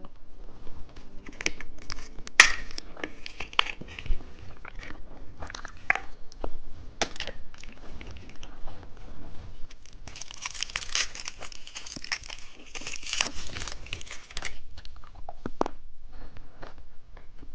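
Plastic candy wrapper crinkling and being torn open, with scattered sharp clicks and taps. A long stretch of dense crinkling comes about two-thirds of the way through.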